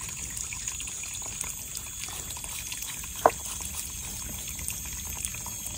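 Kitchen knife scraping the skin of a tongkol tuna held over a basin of water, with water trickling and splashing; a single sharp click about three seconds in.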